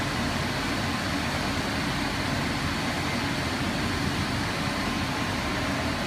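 Steady running noise of an industrial microwave sterilization machine: an even hiss with a low hum and a faint high tone, unchanging throughout.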